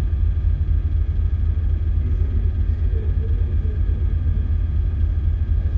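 Steady low rumble with a faint machinery hum from an underway ship's engine and machinery, heard on the bridge.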